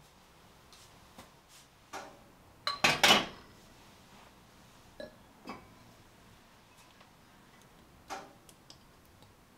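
Kitchen cookware handling on a gas stove: scattered clinks and knocks as an enamelled cast-iron Staub pot and its glass lid are handled on the burner grate, the loudest a short clatter about three seconds in.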